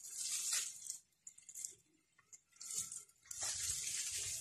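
Rustling and crunching of an uprooted peanut plant's leaves, stems and soil-caked roots as it is handled and shaken, in a few short bursts and then a steadier rustle over the last second.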